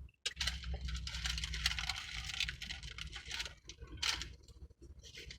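Close-up eating sounds: dense crackling and crinkling for about three seconds, then a shorter burst about four seconds in, over a low steady hum.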